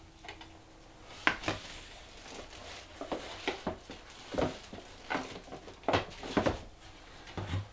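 Plastic disc golf discs being handled and knocked against each other and the table: irregular clacks and taps, a dozen or so over several seconds.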